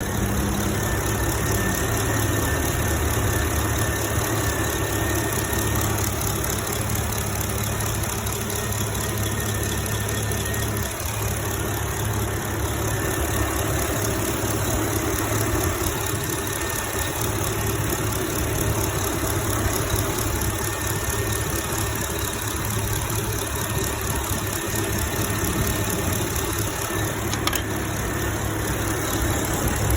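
2011 Camaro SS's 6.2-litre V8 idling steadily with a fast, even ticking riding over the engine note. The owner has been told the tick could be a bad lifter, failing fuel injectors, or normal.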